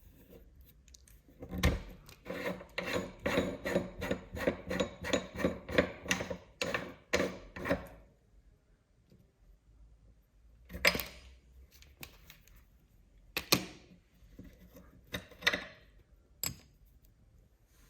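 Meat grinder crushing candies: a run of crisp, rasping crunches about three a second for some six seconds, then a few separate sharp cracks with pauses between.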